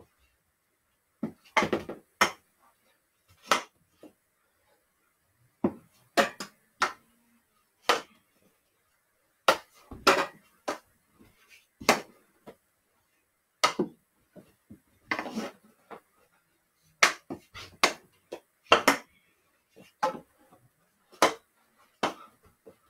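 Hockey stick knocking a small plastic ball out of the air, with the ball bouncing: sharp knocks and clacks at irregular intervals of about one to two seconds, some coming in quick pairs.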